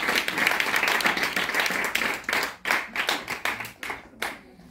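Small audience clapping, dense at first, then thinning out after about two and a half seconds to a few last separate claps.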